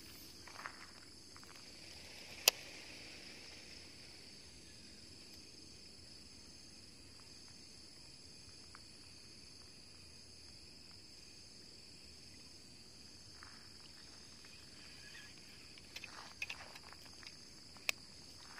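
Steady, high-pitched chorus of insects. A single sharp click comes about two and a half seconds in, and a few soft rustles and ticks follow near the end.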